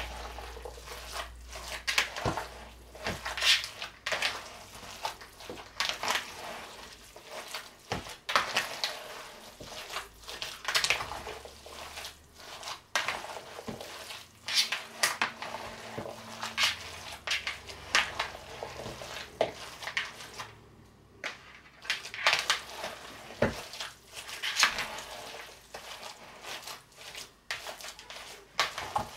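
Bare hands kneading and squishing raw ground beef meatloaf mixture in a plastic bowl: irregular squelching strokes, with a short pause about two-thirds of the way through.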